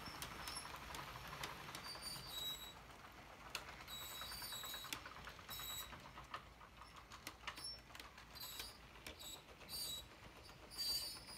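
Model intermodal freight train of double-stack container cars and trailer flatcars rolling past. Its wheels give irregular clicks over the track, with short high squeaks.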